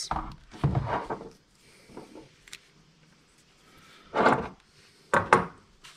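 Handling noises from small plastic electronics parts and cables being picked up and moved about on a wooden workbench: a few brief clacks and rustles, the loudest about four and five seconds in.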